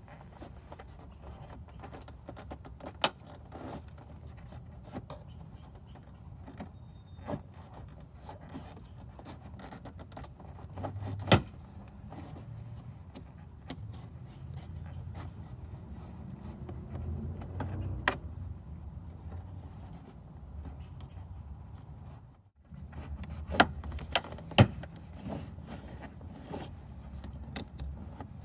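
Plastic trim tools prying at a BMW F10's door sill trim: rubbing and handling noise broken by several sharp snaps as the trim's retaining clips pop loose.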